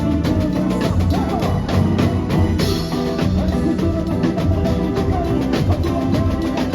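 Samba school music: a bateria's dense, driving drumming under the samba-enredo's melody, loud and continuous.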